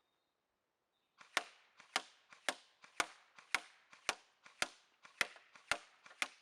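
Airsoft replica firing 0.25 g BBs in single shots, ten sharp cracks about half a second apart, starting a little over a second in.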